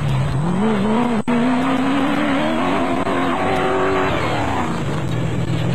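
Off-road race buggy's engine at full throttle, its pitch climbing over the first second or so and holding high. Near the end the car sweeps close past and the engine note falls away.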